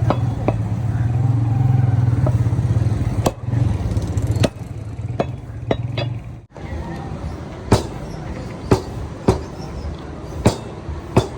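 Sharp chopping strikes of a cleaver cutting beef, coming about once a second in the second half. Under the first half runs a steady low engine-like hum that stops abruptly about halfway through.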